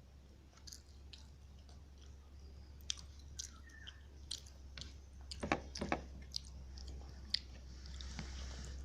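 Close-miked chewing of chicken rice, with scattered short mouth clicks and snaps that come thickest and loudest a little past the middle, over a steady low hum.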